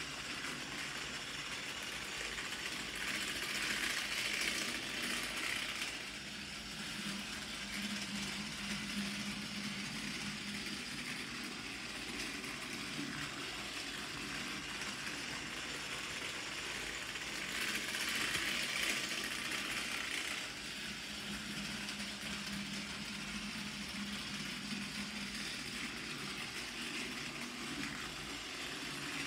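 Battery-powered Plarail TS-03 Henry toy train running laps of a plastic track: a steady small-motor whir with wheels rattling on the track. It grows louder for a few seconds twice, about fourteen seconds apart.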